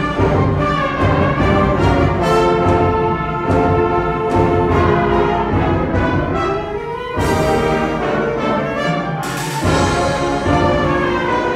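Symphonic wind band playing a loud, brass-heavy passage of sustained chords. About seven seconds in, a rising swell breaks into a sudden full-band accent, and another sharp accent comes a couple of seconds later.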